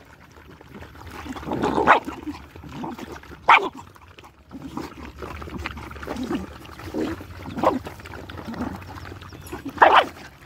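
A pack of young dogs eating together from one dish, with steady scrappy feeding noise broken by about four short, sharp yelps as they jostle for the food.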